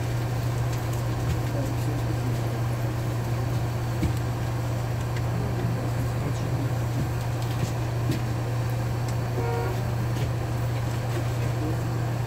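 LiAZ-6213.22 articulated bus's diesel engine running at a steady pitch, a constant low hum heard from inside the passenger cabin. A brief high chirp sounds about nine and a half seconds in.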